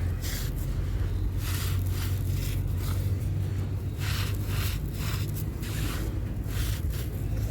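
A crunchy, dusty yellow block being crumbled, giving short crisp crackles about six times over a steady low rumble.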